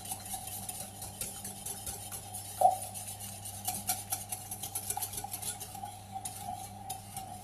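Metal wire whisk beating an egg and milk mixture in a glass bowl: a quick, uneven run of light clicks and taps as the wires hit the glass, with one louder knock about two and a half seconds in. A faint steady hum sits underneath.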